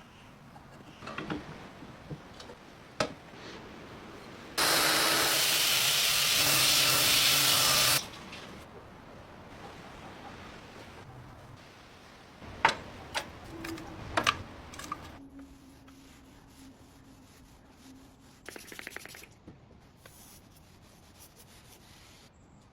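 A steady hiss, loud and even, lasting about three and a half seconds, among scattered clicks and knocks of handling.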